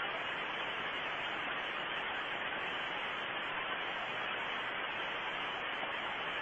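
Steady, even hiss of microphone static, with no distinct sounds standing out.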